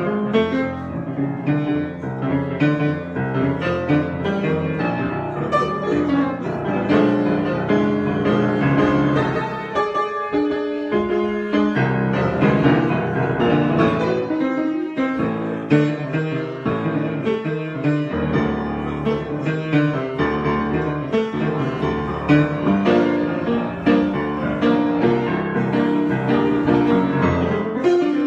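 Piano being improvised: flowing chords and melody, played without a break, with the bass briefly dropping out about ten seconds in.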